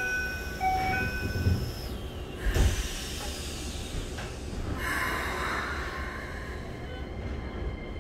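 Interior of a Keikyu 1000 series train car standing at a platform: two short chime tones at the start, a dull thump about two and a half seconds in, and a hiss of air about five seconds in, over a steady low hum.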